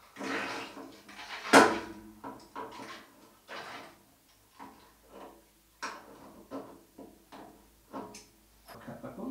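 Pliers clicking and scraping on the brass spindle of a radiator valve as it is turned to open the valve, an irregular run of short clicks with one sharp loud click about a second and a half in.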